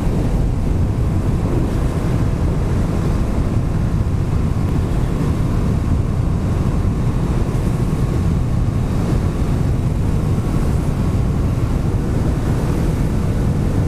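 Steady low rumble of a Kawasaki Vulcan S 650 parallel-twin motorcycle engine and the road at cruising speed, heard from a microphone inside a full-face helmet. There is no wind whistling.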